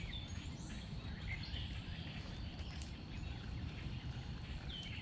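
Outdoor pond-side ambience: a steady low rumble with scattered faint bird chirps.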